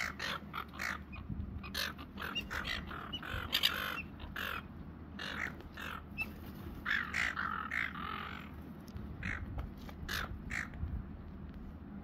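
Seagulls calling: many short cries, in quick runs, scattered all through.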